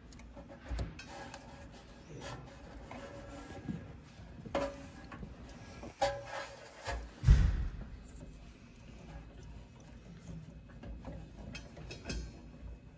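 Handling noises inside an espresso machine's body as spade connectors and wires are pushed back onto the replacement vibration pump: scattered clicks, knocks and rubbing of wires and plastic, with the loudest knock about seven seconds in.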